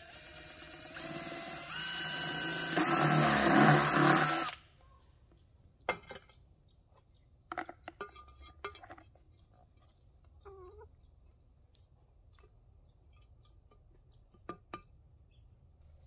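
Power drill running for about four seconds, its whine rising in pitch in steps as the trigger is squeezed harder, then stopping abruptly; scattered light clicks and taps of handling follow.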